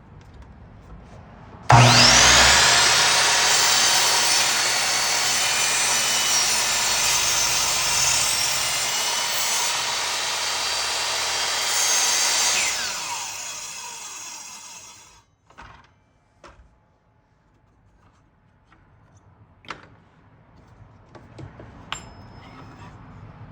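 Electric power saw whining up to speed and cutting through white oak for about ten seconds, then spinning down. A few light knocks follow.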